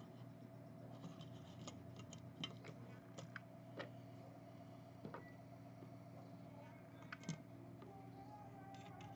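Faint scattered clicks and taps of small tools and parts being handled on a workbench, over a steady low hum.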